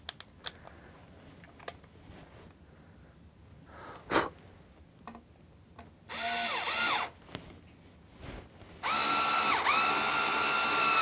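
Small cordless drill running in two bursts, a short one about six seconds in and a longer one near the end, its motor whine dipping briefly in pitch as the bit bites: drilling pilot holes for the panel's mounting screws. A single sharp click about four seconds in.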